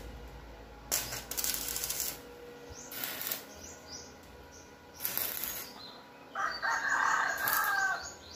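Arc welder crackling in short bursts, about four of them, as a tek screw is tack-welded to a hard steel C-purlin that the screw would not drill into. A rooster crows for about a second and a half near the end, and small birds chirp faintly.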